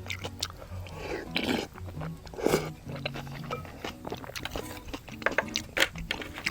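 A person eating bracken-fern ramyeon: wet mouth clicks and chewing, with two longer noodle slurps about a second and a half and two and a half seconds in.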